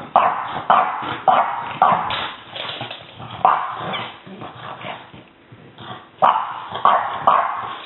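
French bulldog puppy play-barking in a quick run of sharp barks about half a second apart. The barking eases off for a second or so past the middle, then starts again.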